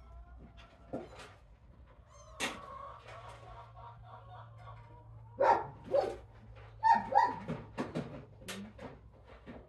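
Young kittens mewing: several short, thin cries, the loudest coming in two pairs about halfway through, among small clicks and rustles.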